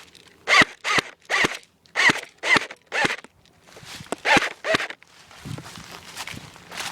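Footsteps crunching through dry leaves and brush, about two steps a second, stopping about five seconds in, after which only a soft rustle remains.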